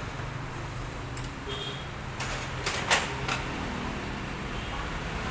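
A handful of sharp clicks and knocks as the plastic and metal side cover panel of a Canon iR copier is handled at its screws. The loudest knock comes about three seconds in, over a steady low hum.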